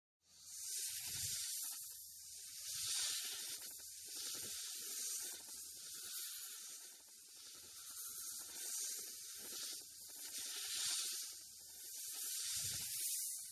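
Large snake hissing in long repeated breaths, each hiss swelling and fading about every two seconds, starting abruptly just after the start.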